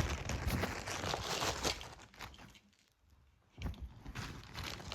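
Handling noise as a weather radio is packed away: crinkling, rustling and small knocks, which stop for about a second just past the middle and then start again.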